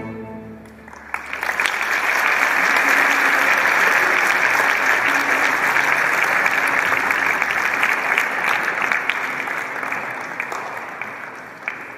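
The last held chord of singers and orchestra dies away, and about a second in an audience starts applauding. The applause is loud and steady, then thins out near the end.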